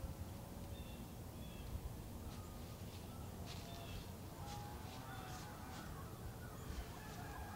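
Outdoor field ambience with a steady low wind rumble and distant animal calls: a string of short calls and a longer drawn-out call about five seconds in.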